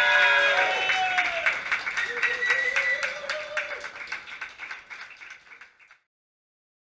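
A group clapping at a steady pace, about five claps a second, with several voices calling out over it. It all fades out and stops about six seconds in.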